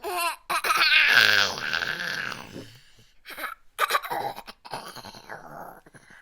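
Baby laughing: a long squealing laugh with a wavering pitch starting about half a second in, then several shorter giggles.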